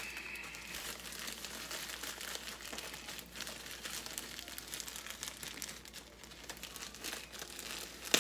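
Plastic poly mailer envelope crinkling and rustling as it is handled and pulled open, with many small sharp crackles and a sudden louder crackle near the end.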